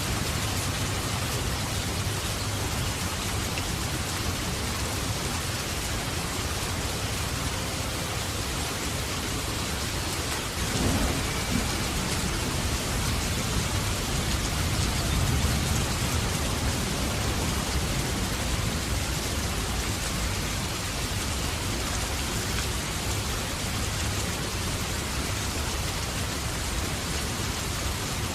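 Heavy rain falling steadily, with thunder: a sharp crack about eleven seconds in, then a low rumble that swells a few seconds later and fades back under the rain.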